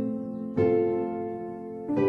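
Instrumental background music: gentle chords that ring and fade, with a new chord struck about half a second in and another near the end.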